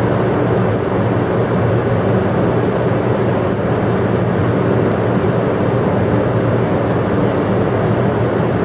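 500 series Shinkansen train standing at the platform, its onboard equipment giving a steady hum made of several held low tones over an even rushing noise.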